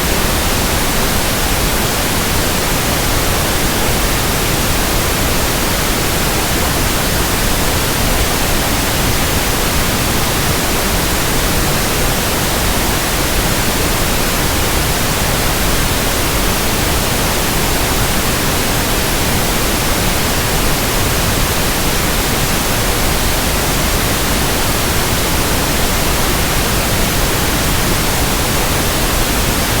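Synthetic pink noise: a steady, even static hiss spread evenly from deep to high pitches, with no changes.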